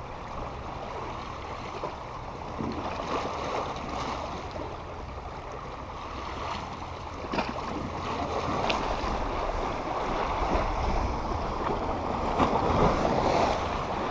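Sea waves washing against a rocky shoreline, a steady wash over a low rumble that slowly grows louder.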